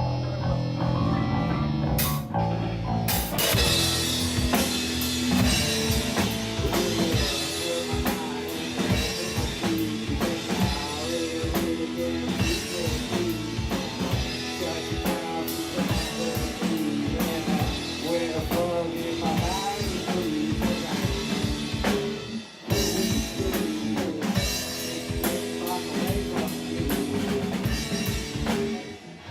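Rock band playing live: electric bass and guitar, with a cymbal crash about two seconds in and the full drum kit coming in a second later. The band stops briefly about two-thirds through, then crashes back in.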